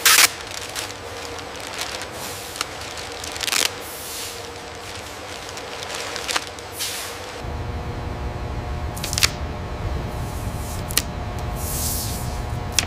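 Plastic protective wrap and bubble wrap rustling and crinkling in short bursts, with a few sharp clicks. A low steady rumble comes in about halfway through.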